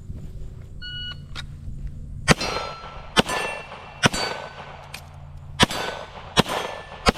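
Shot-timer beep about a second in, then six gunshots at steel targets, each followed by the ring of the struck steel.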